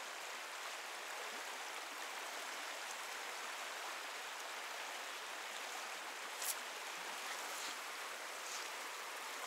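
Shallow river running steadily over a stony riffle, with a single light click about two-thirds of the way through.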